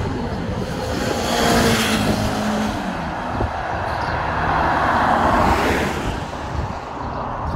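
1981 Yamaha XJ750 Seca's air-cooled inline four passing at speed, its engine note peaking and then dropping in pitch as it goes by. About five seconds in, a car passes with a rush of tyre noise.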